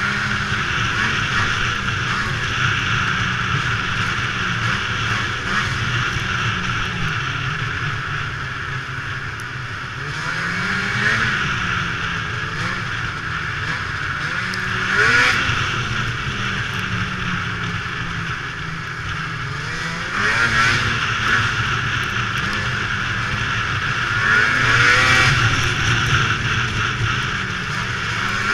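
2002 Ski-Doo MX Z snowmobile's two-stroke engine running at trail speed, rising in pitch several times as the throttle is opened and then easing back, over a steady hiss.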